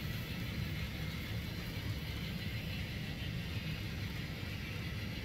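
Model freight train running on the layout track: a steady low rumble and whir as loaded hopper cars roll past.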